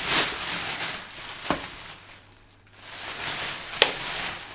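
Rustling and handling of plastic vacuum-cleaner parts and packaging, with two sharp clicks or knocks, one about a second and a half in and a louder one near the end.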